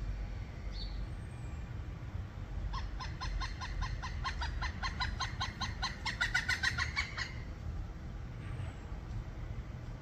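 Pileated woodpecker calling: a series of loud, evenly spaced 'wuk' notes, about five a second, starting about three seconds in and lasting some four seconds, getting louder toward the end. A steady low rumble sits underneath.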